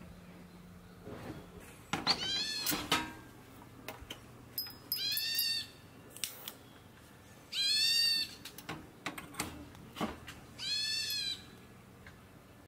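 An animal calling four times, about every three seconds, each call a drawn-out, high, meow-like cry that rises and falls in pitch.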